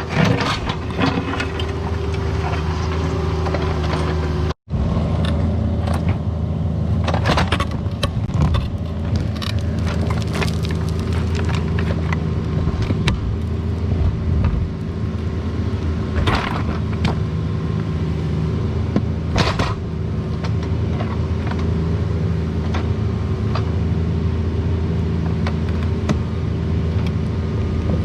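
Caterpillar 304 mini excavator's diesel engine running steadily under work, with scattered scrapes and clanks of the bucket and machine working dirt and stone. The sound cuts out completely for a split second about four and a half seconds in.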